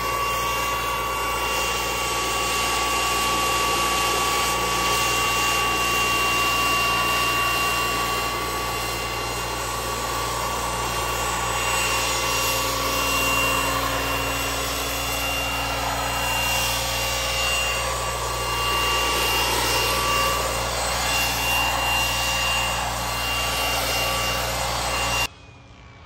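Turbine engine of a 700-size RC helicopter running at flight power, a steady high whine over the rush of the main rotor, as the helicopter lifts off and climbs away. Midway the sound wavers in pitch and loudness, and it cuts off abruptly about a second before the end.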